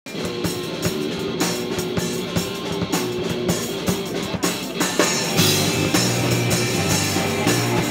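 Live hardcore punk band playing: electric guitars, bass guitar and drum kit through amplifiers. About five seconds in, the low end fills out and the band plays heavier.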